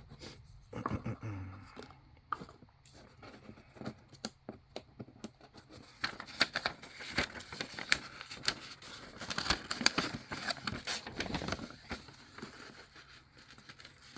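Packaging being torn open and crinkled by hand: a few scattered rustles and clicks at first, then a dense run of crackling and rustling for several seconds in the second half.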